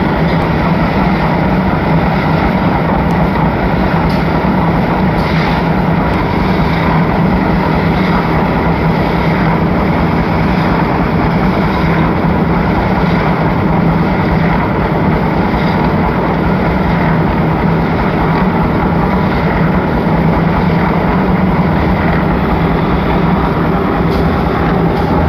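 Concrete machine running steadily under power: a loud, even mechanical drone with a strong low hum and no breaks or changes.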